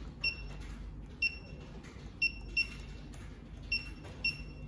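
Beyond Semi-1 syringe pump beeping once per tap on its touch screen as the infusion rate is stepped up: six short, high beeps at uneven spacing.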